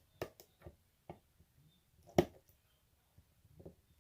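Scattered small clicks and taps of hands working on a vinyl-wrapped turn signal, with one louder knock about two seconds in.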